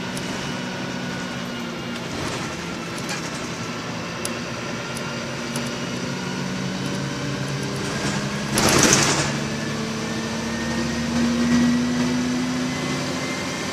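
Interior sound of a MAN 18.220 bus's six-cylinder diesel engine droning steadily while the bus is under way, its note rising gently near the end. A brief loud hiss cuts in about eight and a half seconds in.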